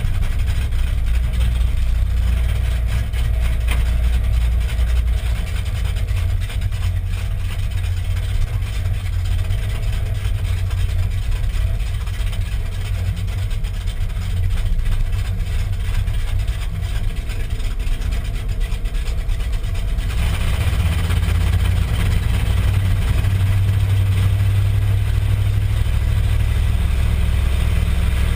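Dodge pickup truck's engine idling with a steady, deep rumble, heard from inside the cab. It grows a little louder about two-thirds of the way through.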